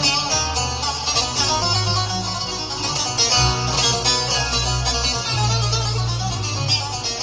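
Korg Pa5X arranger keyboard playing Turkish-style music: a plucked-string lead, saz-like, over a held bass line that changes notes every second or so.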